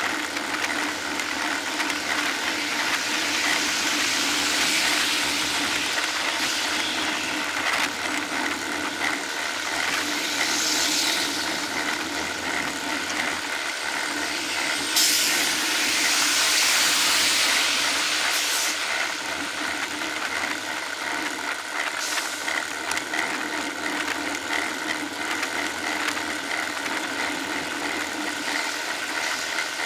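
Steady road-traffic noise heard from a moving bicycle: wind and road rush mixed with the engines of vehicles following close behind. A louder rush swells about halfway through.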